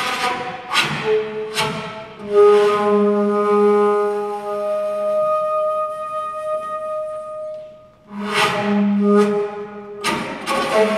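Music played on a flute-like wind instrument. Long held notes run from about two seconds in to about seven and a half seconds, framed before and after by sharp, accented strikes.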